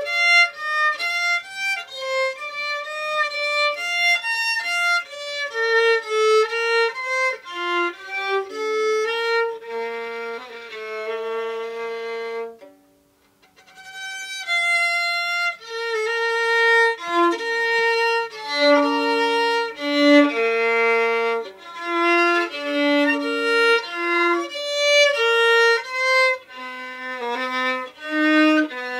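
Solo fiddle playing a slow strathspey: a single bowed melody of held and moving notes. It breaks off for about a second roughly halfway through, then goes on.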